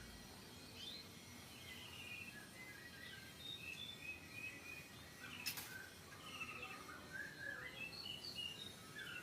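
Small birds chirping and trilling faintly in the background, many short calls overlapping, with one sharp click about halfway through.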